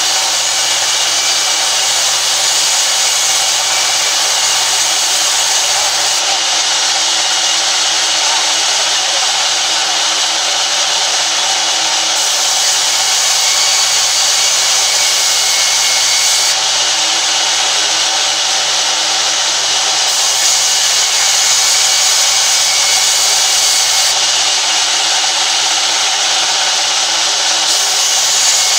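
Band saw mill running and its blade cutting lengthwise through a wooden plank as the plank is fed past by hand: a steady, unbroken sawing noise.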